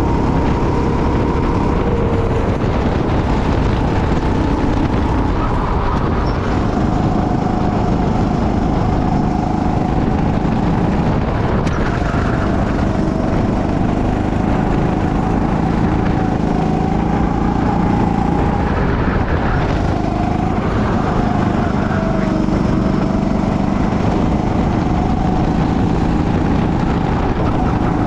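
Go-kart engine running flat out on track, its pitch dipping and climbing as the throttle comes off and on through the corners.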